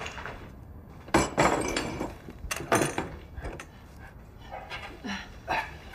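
Wooden debris and broken pottery clattering and knocking as someone stumbles through it: a loud knock about a second in and two more near the third second, with lighter clatter between. A man grunts with strain near the end.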